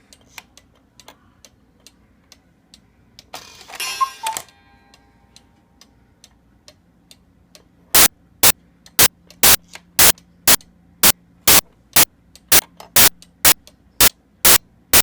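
Jacobs cuckoo clock: faint ticking, then about four seconds in a single two-note cuckoo call with the rush of its newly refabricated bellows. From about eight seconds the ticking turns loud and even, about two ticks a second.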